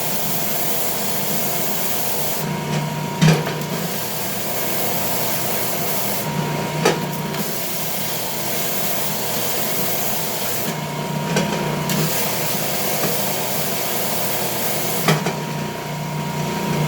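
Ridgid combination belt/spindle sander running steadily, its belt sanding the face of a yellow pine board. The sanding sound changes every few seconds as the board is worked, with a few sharp knocks, about three seconds in, near seven seconds and near the end.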